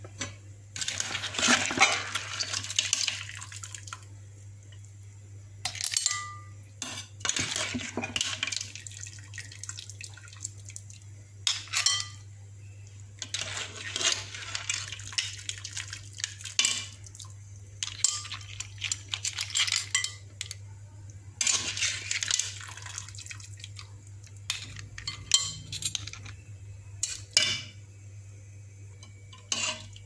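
Shellfish in sauce (clams, mussels, squid and shrimp) being served into a white ceramic bowl: shells clattering and clinking against the china in repeated bursts, with a steady low hum underneath.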